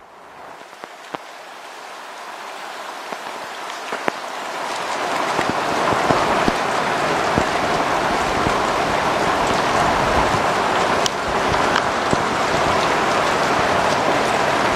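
Thunderstorm rain starting light and building over about five seconds into a steady downpour, with individual drops ticking sharply on a nearby surface.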